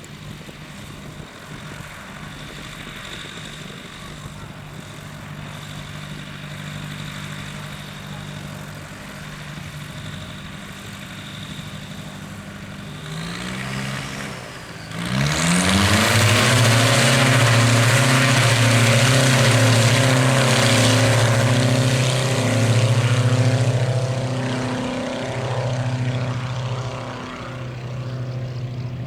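A propeller aircraft's piston engine runs steadily at low power, then revs up to full power about fifteen seconds in and stays loud, easing off somewhat in the last few seconds: a light plane opening the throttle for its takeoff run.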